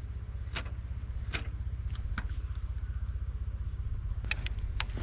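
Spinning reel being wound as a lure is retrieved: a steady low rumble with a dozen or so sharp clicks and ticks, bunched together near the end.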